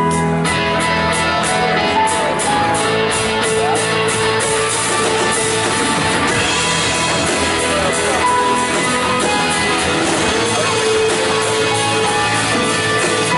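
Band music with guitar, held chords and notes under a quick, even ticking rhythm that drops out about four seconds in.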